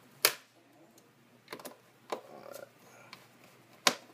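Sharp plastic clicks and knocks from a Compaq CQ57 laptop's replacement screen assembly being fitted to the base. Two loud clicks, one just after the start and one near the end, with softer handling knocks between, as one side locks into place.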